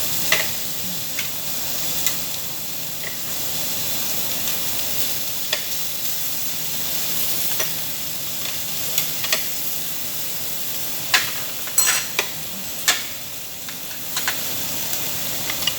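Meat sizzling steadily on a Korean barbecue tabletop grill, with sharp clicks and clinks of tongs or utensils against the grill and dishes, several in the last few seconds.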